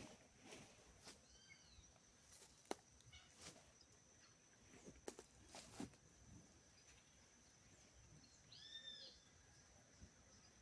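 Faint woodland ambience: a steady high insect whine, with a short arching bird call about a second and a half in and a louder one near the end. Scattered light clicks and rustles run between them.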